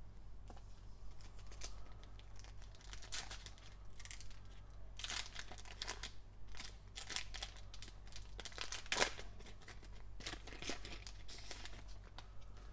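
Foil wrapper of a Panini Donruss Optic basketball card pack crinkling and tearing as it is opened. It makes a run of irregular sharp crackles, the loudest about nine seconds in.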